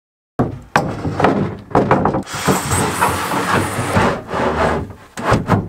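A plywood board being cut and handled: a run of irregular knocks and scrapes that starts suddenly, with a steadier stretch of hissing, scraping noise in the middle.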